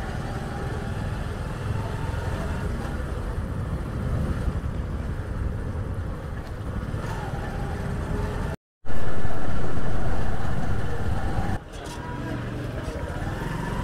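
Motorcycle engine running steadily as the bike rides along, heard from the rider's seat with a low rumble. About two-thirds through, the sound cuts out for a moment, then comes back as a louder rush for about three seconds before settling again.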